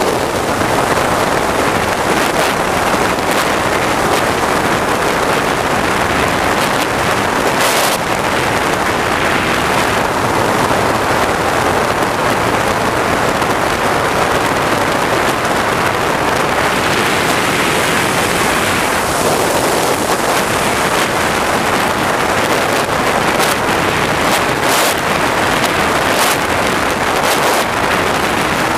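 Turbine engine of a large RC sport jet running, a steady loud rushing roar mixed with wind buffeting the microphone.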